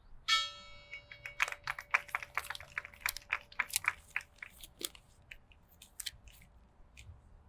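A single strike on a memorial bell, tolled for the deceased firefighter just named, with a bright clang that fades within a second and one lower tone that hums on for several seconds. Over it comes a run of irregular sharp clicks.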